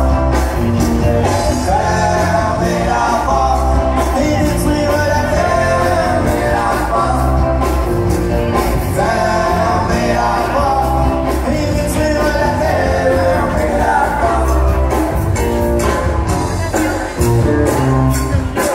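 Upbeat live band music with a lead singer, in a country rock-and-roll style, over a steady drum beat.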